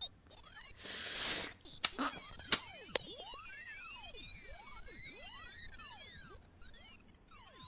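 Sine-wave test tone of a high-frequency hearing test: a single piercing pure tone sliding slowly and steadily lower in pitch. A brief rustle about a second in and a few clicks follow.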